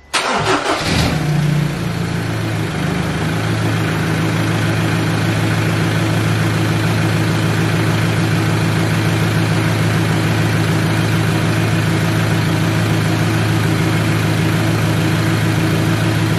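Ford Ranger PX turbo-diesel engine starting and running, its first start after a replacement billet-wheel turbocharger was fitted. It fires right at the start with a brief flare in revs, settles down over the first few seconds, then idles steadily.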